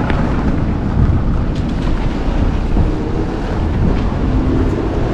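Wind buffeting the camera's microphone: a loud, steady rumbling noise that gusts up and down, heaviest in the low end.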